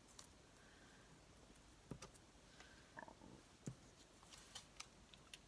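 Near silence with a few faint, scattered clicks and taps from paper and craft supplies being handled on a work surface.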